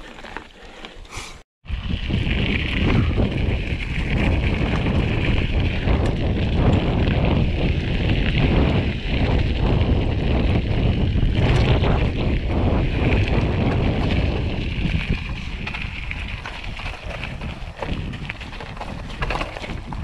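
Wind buffeting the microphone of a handlebar-mounted camera while a mountain bike rattles and knocks over a rough dirt trail. The sound drops out briefly about a second and a half in, then resumes.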